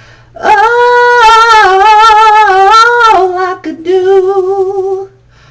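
A solo voice singing unaccompanied: a wordless run of long held notes with wide vibrato, belted loud for about two and a half seconds, then a softer held note that ends shortly before the next line.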